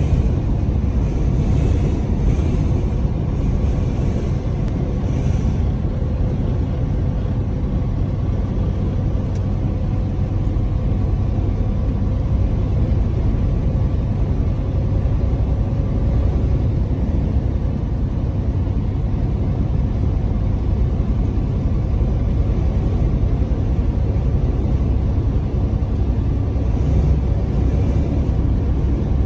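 Steady low rumble of a semi truck cruising at highway speed, heard from inside the cab: engine drone mixed with road noise.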